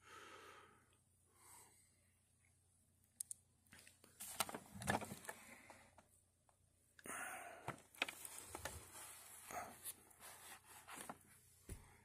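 Faint breathing and soft handling noise: rustles and a few light clicks while a phone camera is moved around a switched-off upright vacuum cleaner.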